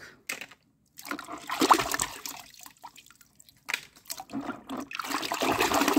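Water sloshing and splashing as a hand swishes through it in a plastic tub: a short spell about a second in, then a longer one from a little past the middle.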